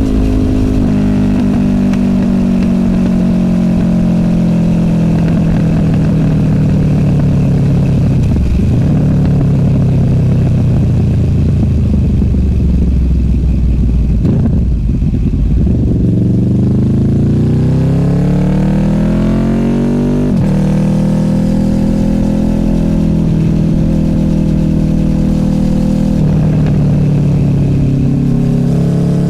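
Honda VFR800F's V4 VTEC engine through an SC Project Conic exhaust, heard from the moving bike. The engine note falls steadily for the first half as the bike slows, with a short break about eight seconds in, then rises from about sixteen seconds in under acceleration, breaks at a gear change around twenty seconds, and settles into a steadier note.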